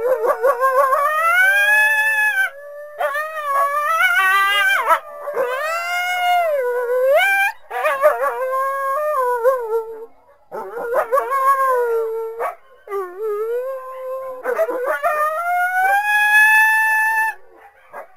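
Coyote howling and yipping: a string of wavering howls that slide up and down in pitch, in phrases of a second or two with short breaks between, mixed with quick choppy yips.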